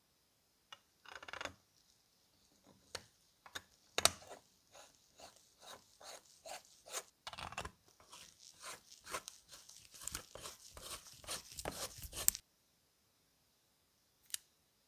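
Brass eyepiece of a pair of opera glasses being handled and screwed onto its threaded barrel: an irregular run of small scraping clicks from metal threads and parts in gloved fingers, ending suddenly about twelve seconds in. One light click follows near the end.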